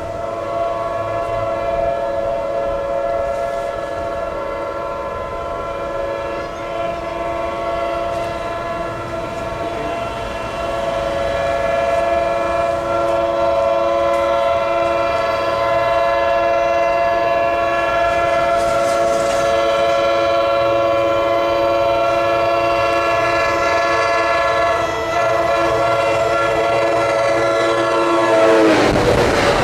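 Metro-North GP40FH-2 locomotive sounding its restricted, out-of-tune Nathan K5LA five-chime air horn in one long unbroken blast as it approaches at speed. Just before the end the chord drops in pitch as the locomotive passes, the horn stops, and the rush of the passing train takes over.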